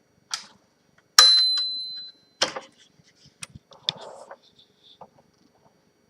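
1939 Smith Corona Standard typewriter being operated: a key clack, then about a second in a strike that sets off the margin bell, one clear ding fading over about a second. Another sharp clack follows, then smaller mechanical clicks and a brief rattle.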